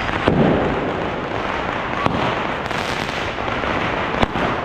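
Firecrackers going off in the street: a continuous crackle of many bangers with single sharp bangs about a third of a second in, at about two seconds and just after four seconds, the last the loudest.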